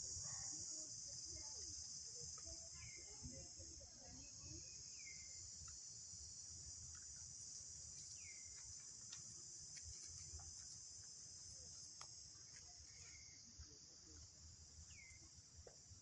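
Steady high-pitched insect chorus, a constant shrill drone, with faint short falling chirps every second or two.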